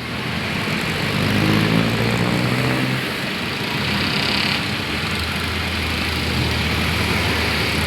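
A motor vehicle's engine running amid steady road noise, its pitch rising slightly about a second in.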